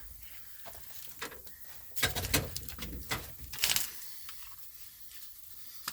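Two short tack welds being struck on steel, each a brief crackling burst: one about two seconds in and a shorter one a little over a second later.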